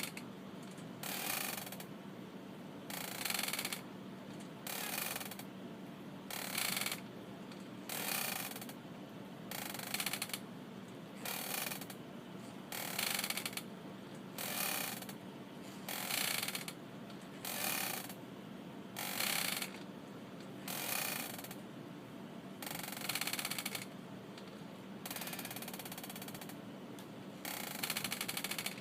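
Wooden rocking chair creaking as it rocks back and forth, about one creak a second, over a steady low hum.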